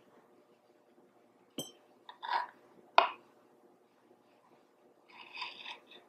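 A few sharp clinks and knocks, two of them about a second and a half apart, then a knife scraping as it slices a vanilla bean lengthwise on a wooden cutting board near the end.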